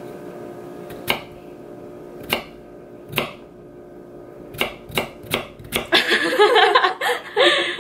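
Paring knife slicing through a peeled cucumber onto a wooden cutting board: about seven sharp knocks at uneven spacing, coming faster about four and a half seconds in. Near the end a person's voice comes in over the cutting.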